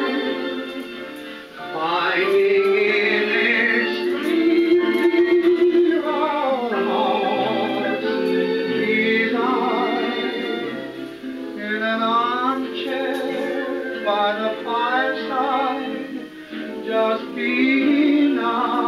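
Background music: a vintage 1930s dance-band song recording, its melody carried with a wide vibrato.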